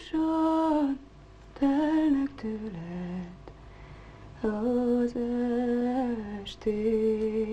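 A woman humming a slow, unaccompanied tune in long held notes, in short phrases with brief pauses between them.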